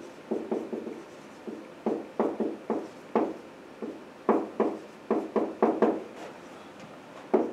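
Marker pen writing on a whiteboard: a run of short, irregular scratching strokes, a few a second.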